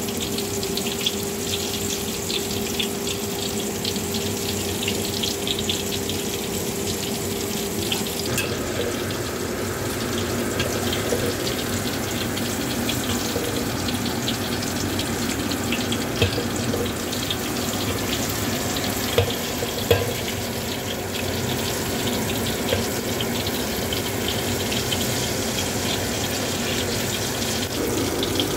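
Hot oil in a wok sizzling and crackling steadily as fritters deep-fry, with a dense patter of small pops.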